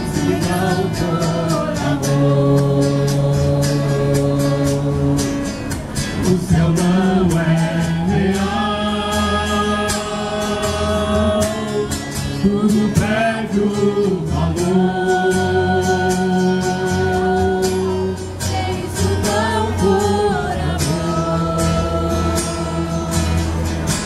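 A small group of male and female singers performing a gospel worship song together in long held notes, accompanied by a strummed acoustic guitar and heard through a PA loudspeaker.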